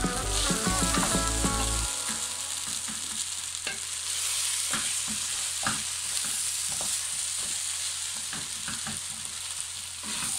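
Wooden spatula stirring and turning string hoppers (idiyappam) with vegetables in a non-stick wok, over a steady frying sizzle. Scattered sharp clicks come where the spatula knocks against the pan.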